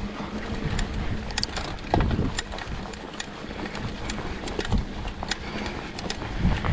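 Trek Slash 7 mountain bike riding down a dirt trail: tyres rolling over dirt and rock, with the chain and frame rattling in many sharp, irregular clicks. Wind rushes on the microphone throughout.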